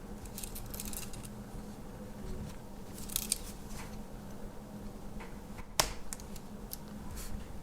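Light metal clicks and scrapes of a Victorinox Angler Swiss Army knife's tools being handled, with one sharper click a little past the middle.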